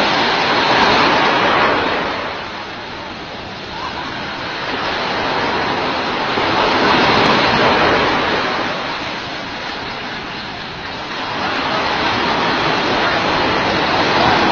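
Ocean surf breaking on the beach: a steady rush of waves that swells and eases about every six seconds.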